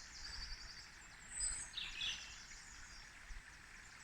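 Songbirds singing, with a few high chirps and short trills, over the steady babble of a stream running over rocks.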